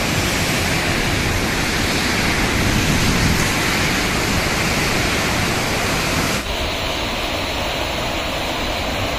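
Steady, loud rushing of falling water. About six seconds in it changes abruptly to a duller rush with less hiss.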